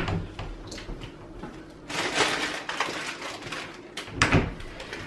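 Someone fetching an item out of sight: a knock at the start, a stretch of rustling handling noise from about two seconds in, and another knock about four seconds in.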